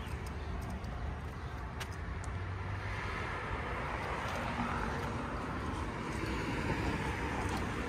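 Steady road traffic noise from passing cars, swelling a little after midway as a car goes by.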